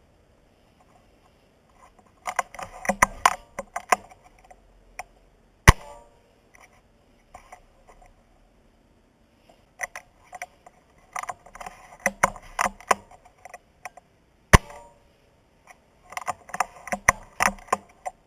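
Rifle handled with the camera mounted on it: bursts of quick clicks and rattles, and two single sharp snaps about nine seconds apart.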